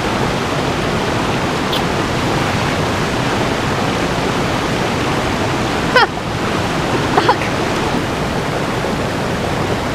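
Shallow river rushing over boulders below a waterfall: a steady, even rush of water. Two brief high cries cut through it, about six and seven seconds in.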